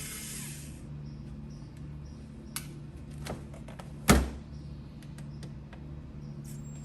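A small battery-powered screwdriver's motor whirs and stops within the first second, followed by scattered light clicks of handling small screws and parts, with one louder knock about four seconds in.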